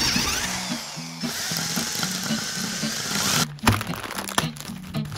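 Cordless electric screwdriver with a hex bit running, its motor whine rising and falling as it drives a small screw. It stops about three and a half seconds in, followed by crinkling and clicking as a plastic parts bag is handled. Guitar music plays underneath.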